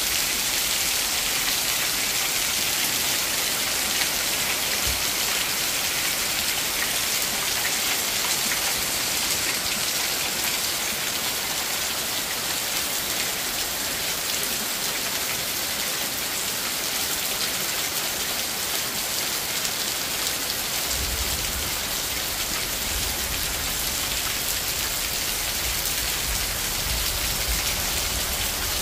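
Steady rain falling on a roof and running off its wooden edge, a continuous even hiss with no break.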